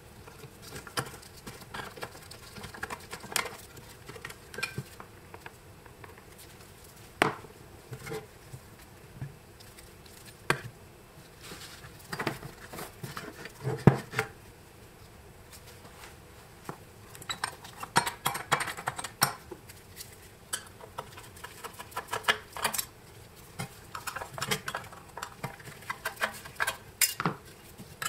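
Screwdriver and small metal telephone parts clicking, tapping and scraping as a vintage magneto telephone's bells, coil and wiring are unscrewed and lifted out of the case. The taps come irregularly, with a sharper knock about halfway through.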